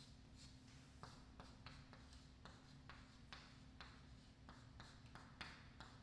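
Chalk writing on a chalkboard: faint, irregular taps and short scratchy strokes as letters are written, over a steady low electrical hum.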